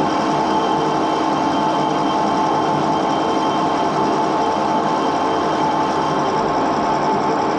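Edgwick metal lathe running steadily with its chuck spinning, a loud, even mechanical hum with several held tones.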